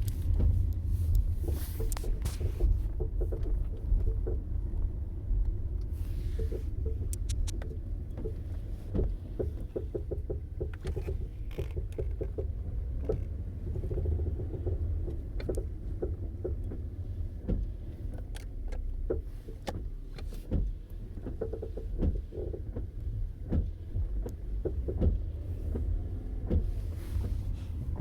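2006 Toyota Camry LE on the move: a steady low rumble with many irregular sharp knocks and clunks, the clunking that comes with steering and going over bumps.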